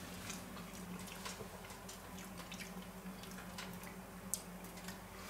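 Faint, wet clicking and smacking of a mouth chewing a bite of steak, with one sharper click a little after four seconds in, over a steady low electrical hum.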